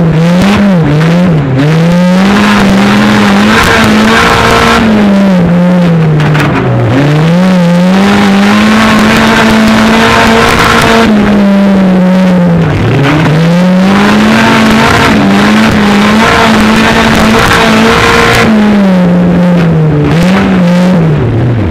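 Stock car's engine heard from inside the cockpit, running loud and revving up and falling back over and over as the car is driven hard, with a few sharp drops in revs.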